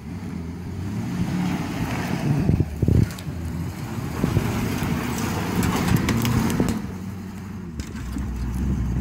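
Ford F-250 pickup truck's engine running as it drives slowly over rough grassy ground, the engine note rising and falling, with twigs and brush crackling under the tyres about halfway through.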